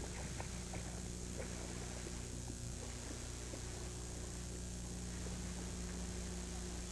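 Steady electrical mains hum on the soundtrack, with a few faint ticks in the first second and a half.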